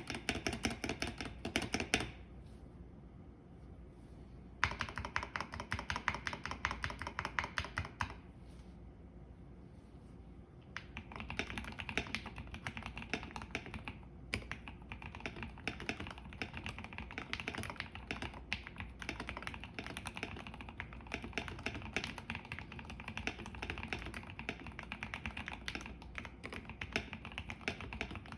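Typing on a custom KBD75 V3.1 mechanical keyboard with an aluminium plate and Gateron CJ linear switches, its spacebar dampened with foam. Short bursts of fast keystrokes with two pauses of a few seconds, then steady continuous typing from about 11 seconds in.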